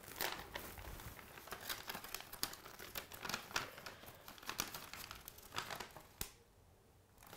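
A folded sheet of paper being handled and unfolded, crinkling in many short, sharp rustles that die away about a second before the end.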